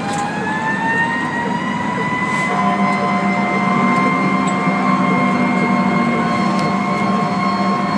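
An emergency vehicle's siren heard from inside the cab. Its pitch climbs slowly over the first couple of seconds and then holds a steady wail. The vehicle's engine drones underneath, louder from about two and a half seconds in.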